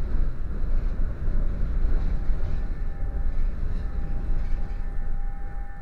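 Tram running along the rails, heard from inside the car: a steady low rumble, with a faint thin whine coming in about two seconds in.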